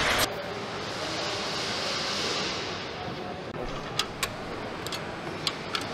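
Truck assembly-line factory ambience: a steady din that drops in level just after the start, with five or six sharp clicks from parts and tools being handled in the last two seconds.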